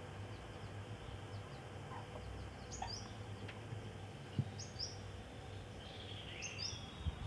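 A small bird chirping, a quick high two-note call repeated three times about every two seconds, over a faint steady background hiss.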